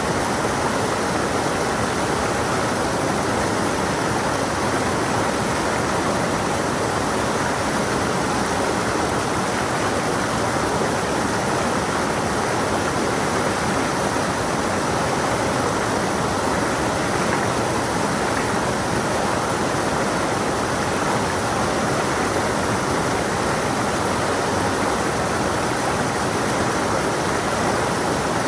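Stream water rushing steadily over rocks, an even, unbroken flow.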